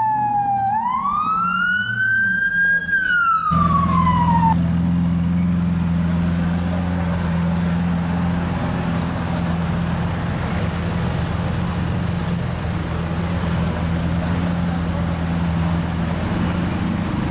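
An emergency-vehicle siren wailing, sweeping down, then up and down again in pitch, cut off abruptly about three and a half seconds in. After that, a steady low idle of a supercar engine standing in traffic.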